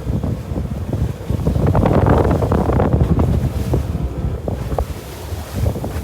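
Wind buffeting the microphone: a heavy, rushing low rumble with crackles, swelling about two seconds in.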